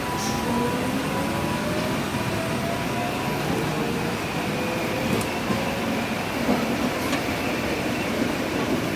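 Kumamoto City Tram 8800-type streetcar pulling away from a stop: its motors whine, rising slowly in pitch as it gathers speed, over the steady rumble of wheels on the rails.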